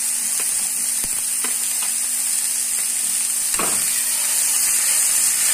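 Chopped onions sizzling in hot oil in a kadai, frying towards a light pink, with a steady hiss. A slotted spoon stirs them and clicks now and then against the pan, once more loudly about three and a half seconds in.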